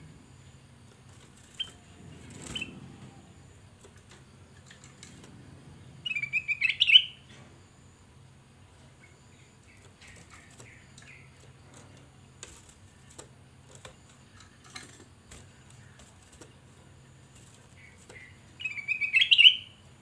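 Ruby-throated bulbul (kutilang emas) singing: two loud phrases of quick, rising whistled notes, each about a second long and some twelve seconds apart, with a couple of faint short chirps before the first.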